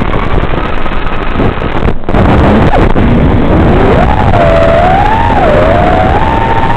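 FPV freestyle quadcopter's brushless motors whining under heavy hiss, the pitch climbing and falling as the throttle changes, with a brief dropout about two seconds in.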